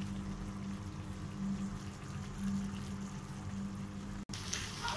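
Faint bubbling of a thick tamarind and orange-peel mixture simmering in a kadai, over a steady low hum. The sound drops out abruptly about four seconds in.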